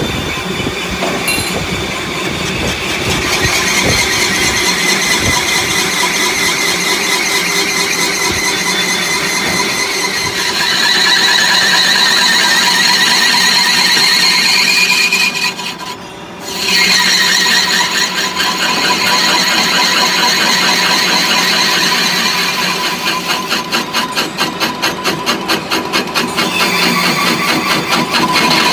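Metal lathe cutting a spinning part, the tool squealing at a high pitch that shifts through the cut over the steady hum of the machine. The sound dips for about a second around the middle and turns into a rapid pulsing near the end.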